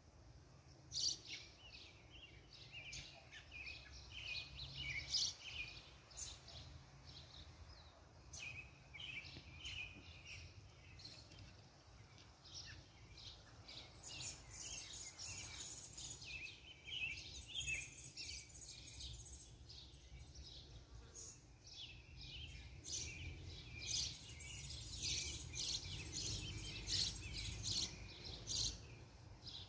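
Several birds chirping and singing, with many short calls and trills one after another and a busier stretch near the end, over a steady low outdoor rumble.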